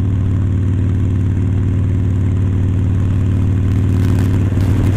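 Harley-Davidson Sportster 1200 Forty-Eight's air-cooled V-twin running at a steady cruising speed, its pitch holding level, heard from the rider's seat.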